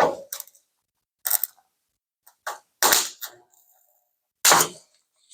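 Sharp metal clanks from dent repair on a Ford F-350 Super Duty's steel bed panel, as the welded-on pull studs are pulled and the dent is hammered out. About five separate strikes, irregularly spaced, each ringing briefly.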